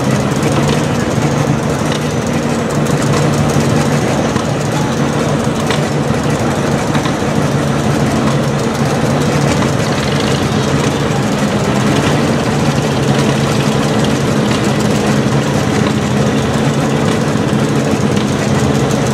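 Small farm tractor's engine idling steadily, hitched to a pulling sled.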